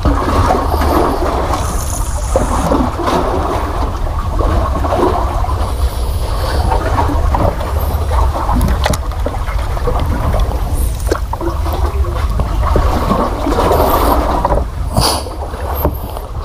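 Water sloshing and splashing against a small wooden boat's hull, over a steady low rumble of wind on the microphone, with a few sharp clicks now and then.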